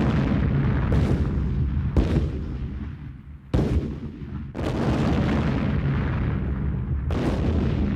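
A string of heavy explosions, about six sudden blasts a second or more apart, each trailing off in a long deep rumble, like distant artillery or bombing in a war sound effect.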